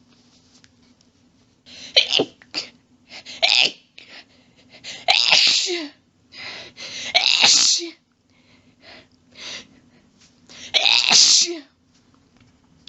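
A person sneezing over and over in a rapid allergy fit: about five loud sneezes, one to three seconds apart, with quieter breaths between, over a faint steady hum.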